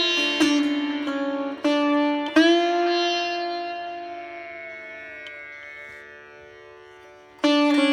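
Background music played on a plucked string instrument over a steady drone: a few plucked notes, then one long note that slowly fades and bends slightly, and quicker plucking starts again near the end.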